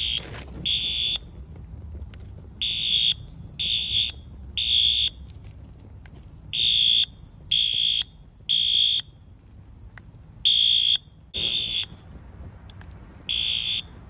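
Wheelock AS fire alarm horn/strobe's electronic horn sounding its alarm in groups of three short, high-pitched blasts, the temporal-three evacuation pattern, while the unit is being burned. The third group near the end breaks off after two blasts, and there is a single sharp knock. A low rumble runs underneath.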